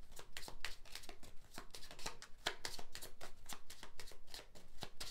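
A deck of cards being shuffled by hand: a quick, irregular run of crisp card flicks and slaps, several a second.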